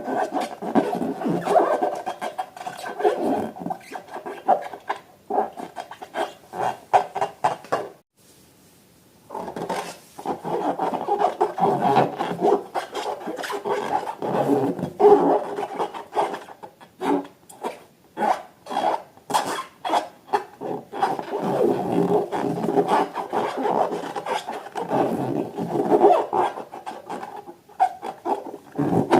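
Rubber balloons being rubbed and squeezed by hand: a dense run of rasping, squeaky rubbing strokes, with a short pause about eight seconds in.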